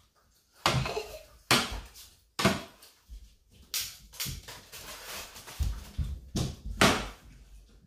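Metal kitchen tongs clacking and scraping against a foil-lined aluminium pan and a serving plate as hot dogs are picked up and set down: about eight sharp, irregular knocks.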